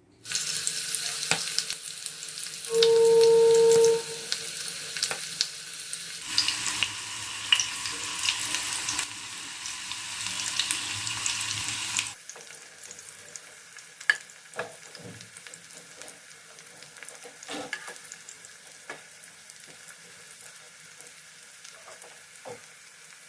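Banana-blossom (mocha) fritters sizzling as they fry in hot oil in a saucepan. The frying is loudest for the first half and then goes on quieter, with scattered clicks of a utensil against the pan. About three seconds in, a short steady tone sounds over it.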